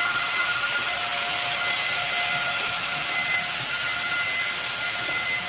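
Model railway freight train running along the track: a steady whine from the model locomotive's small electric motor over the rolling noise of the wagons.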